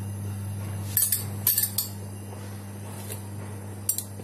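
A spoon clinking against a dish several times as soup is served and tasted: a cluster of sharp clinks about a second in and another near the end, over a steady low hum.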